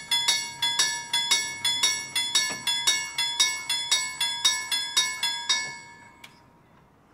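Railway level-crossing warning bell ringing in rapid, evenly spaced strokes, then stopping a little over five seconds in, followed by a single click.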